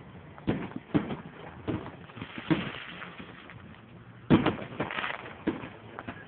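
Aerial fireworks launching and bursting: a string of about nine sharp bangs at uneven intervals, the loudest about four seconds in, with a faint hiss between them.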